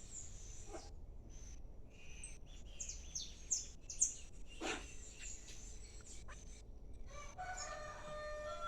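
Birds calling outdoors: a run of quick high chirps around the middle, and near the end a longer call made of several held tones.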